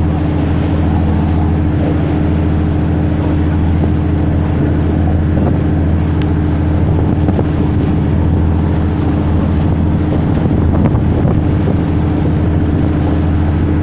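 Passenger tour boat's engine running at a steady, unchanging drone under way, with water rushing past the hull.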